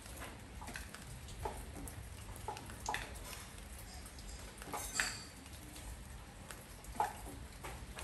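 Rain dripping on a porch: single drops landing at irregular intervals, two louder drips about five and seven seconds in, over a low steady rumble.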